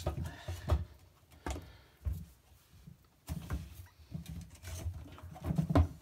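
Rubber door seal of a Miele washing machine being pulled and worked free of the front panel by hand: a series of scattered soft knocks and rubbing sounds.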